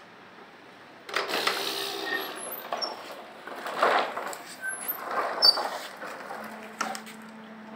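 Ride-on toy tractor and its two loaded toy trailers rolling over brick paving: the wheels rumble and scrape and the loads rattle and click unevenly, starting about a second in.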